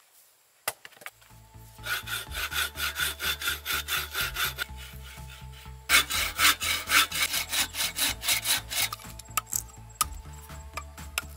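Quick back-and-forth scraping strokes, about four or five a second, in two runs, like a saw or a rasp working wood, over low background music.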